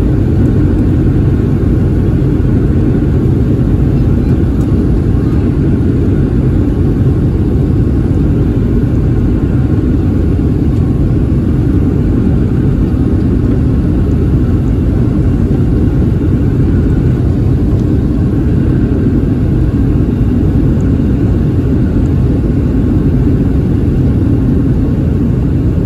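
Steady, loud low rumble inside the cabin of a Boeing 737-700: the CFM56-7B turbofan engines and rushing air under power.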